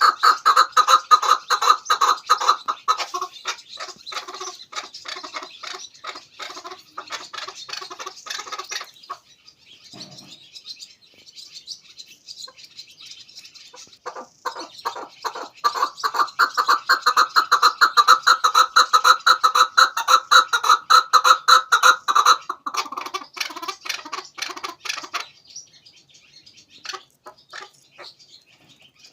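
Chukar partridge calling: fast, clucking runs of repeated 'chuk' notes. The calls come in two long loud bouts with a lull between them, then trail off into scattered notes near the end.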